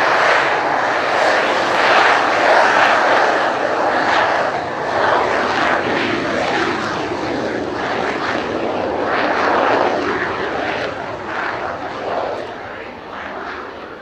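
Kawasaki T-4 jet trainer's twin turbofan engines at take-off power as it rolls down the runway: a loud, steady rushing jet noise that fades over the last few seconds as the aircraft accelerates away and lifts its nose.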